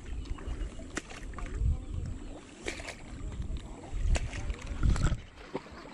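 Wind buffeting the microphone in low gusts, with a few sharp clicks.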